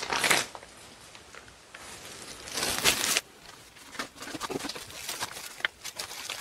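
Plastic kimchi pouch and disposable plastic glove crinkling and rustling as kimchi is pulled out of the bag. Loud rustles at the start and again around three seconds in, then lighter crackling.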